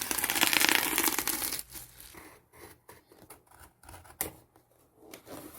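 Keyboard packaging being opened by hand: a loud rasping tear for about a second and a half, then scattered rustles and light clicks, with a sharper click about four seconds in.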